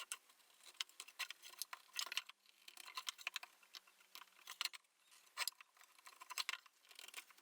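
Marking gauge being run along the edges of a wooden box, its cutter scoring gauge lines into the wood: faint, irregular short scratches and clicks.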